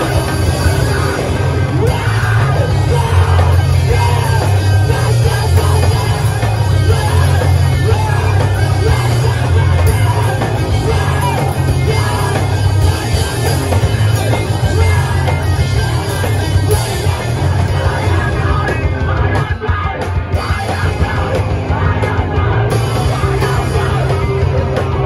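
A live band playing loud rock music, drums and guitars, with yelled vocals over it.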